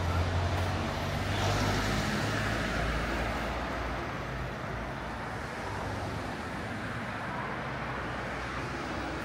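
City street traffic: a motor vehicle's engine hum passes in the first two seconds and fades, leaving a steady wash of road noise.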